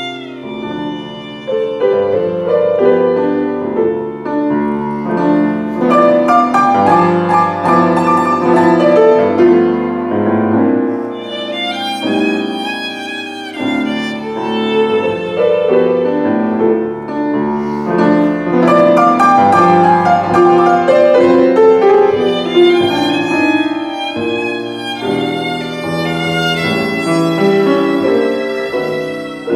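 Violin and August Förster grand piano playing classical music together as a live duo, the violin's bowed melody over moving piano chords.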